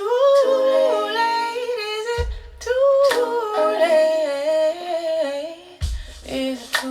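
Music: wordless, layered female vocal harmonies humming and holding gliding notes, with a deep thump twice, played back over hi-fi loudspeakers in a room.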